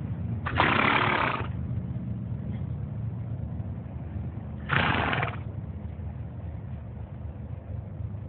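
A horse breathing out heavily twice, once about half a second in and again near five seconds, over a steady low hum.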